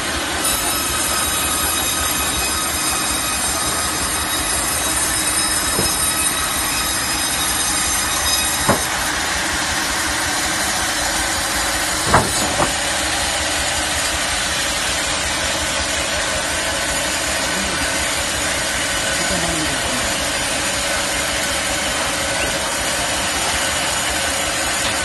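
40-inch vertical log band saw running and cutting a log on its manual rail carriage: a steady, loud machine noise of blade and electric motors, with high whining tones for the first several seconds. A few sharp knocks sound near the middle.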